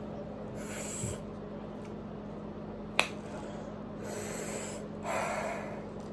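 A person sniffing and breathing hard in several short breaths while eating very spicy noodles, with a sharp click about halfway through.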